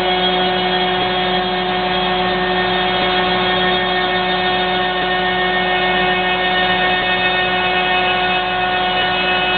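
CNC router spindle running steadily while milling a windsurf fin, a constant whine over a machining hiss, with faint ticks about every two seconds.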